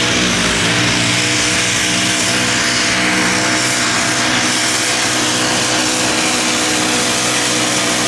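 Mini modified pulling tractor's engine held at full throttle at a steady pitch while hauling the weight-transfer sled under load, with a loud rushing noise over it.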